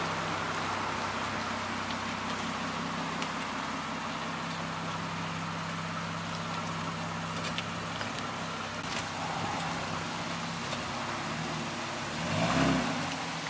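Lexus RC350's 3.5-litre V6 running at low revs as the lowered car creeps slowly out of a driveway, swelling briefly louder near the end.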